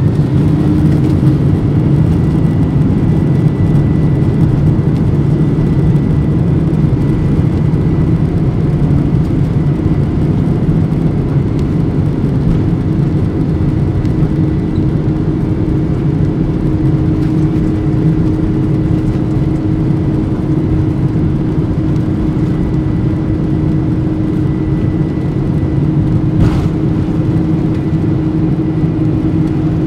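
GE CF6 turbofan engines of a Boeing 767-300 at takeoff thrust during the takeoff roll, heard from inside the cabin: a loud, steady rush of engine noise with a steady high whine over it.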